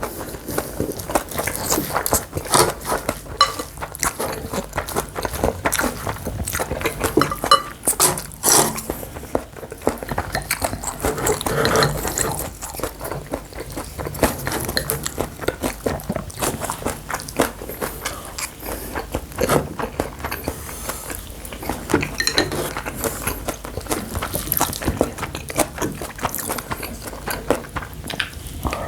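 Close-up eating sounds from bibimbap: chewing and biting, with irregular short clicks of cutlery against a dish.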